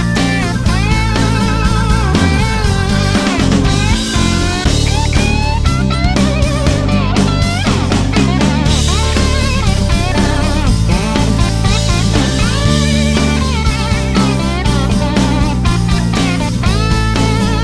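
Background rock music with bending, wavering electric guitar lines over bass and drums.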